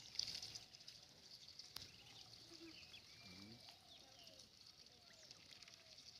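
Faint scattered calls of farm ducks over a steady high buzz, with one sharp click about two seconds in.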